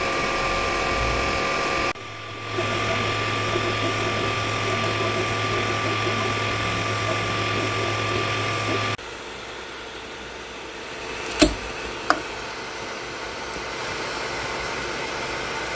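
Creality CR-10 Smart 3D printer running a print: a steady mechanical whine with a hum under it, changing abruptly twice. Two sharp clicks come about two-thirds of the way through.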